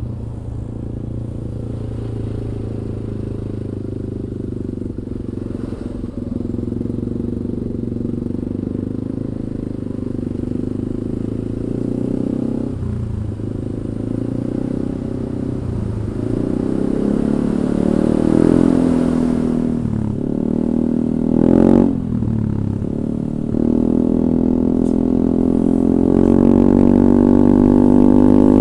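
Yamaha Aerox 155 scooter's single-cylinder engine running through a DSM Cobra racing exhaust with a 38 mm inlet, its note rising and falling with the throttle. A short sharp rev blip comes about three-quarters of the way in, and it runs louder and higher near the end.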